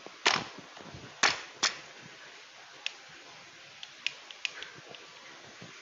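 Hard metal and plastic gaming-chair parts knocking and clicking as they are pushed together by hand: three loud sharp knocks in the first two seconds, then lighter scattered ticks.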